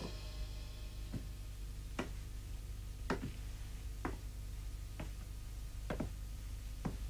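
Soft, short clicks about once a second, a few of them doubled, over a low steady room hum.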